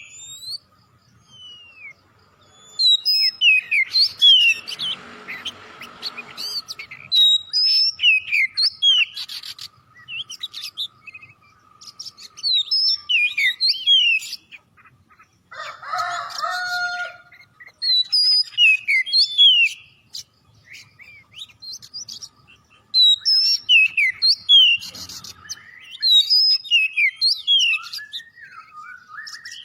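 Oriental magpie-robin (kacer) singing vigorously: bursts of rapid, varied whistles and sweeping chirps in phrases a few seconds long with short pauses between. A harsher, rasping passage comes about five seconds in, and lower notes around the middle. It is a training or lure recording (masteran) meant to get other magpie-robins singing.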